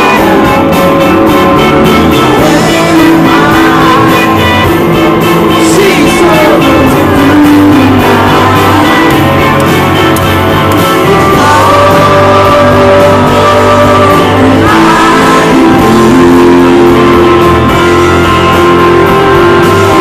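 Live rock band performance: electric guitar and band under a male lead vocal singing, loud and steady.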